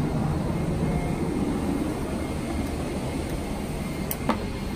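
Steady low hum of a parked Boeing 777-300's cabin ventilation, with a single sharp click about four seconds in.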